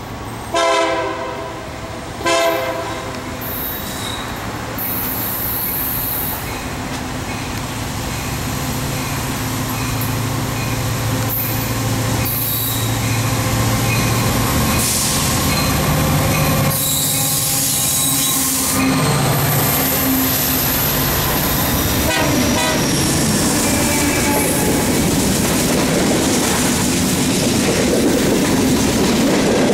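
Union Pacific diesel locomotives leading a freight train sound two horn blasts, the first about half a second in and the second about two seconds in. The diesel engines then pass close by, and covered hopper cars follow, their wheels rolling and clacking over the rails.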